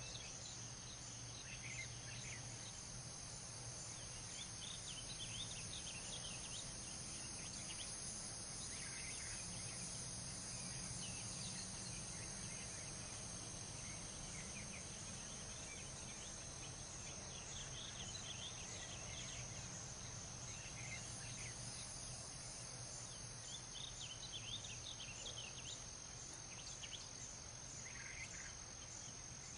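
Night-time outdoor ambience: a steady high chirring of insects over a low distant hum, with scattered faint chirps coming in small clusters.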